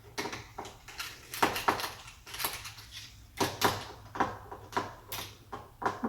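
Hand screwdriver tightening the mounting screws of a deadbolt: a string of irregular short clicks and scrapes as the bit turns in the screw heads and the lock's metal parts shift.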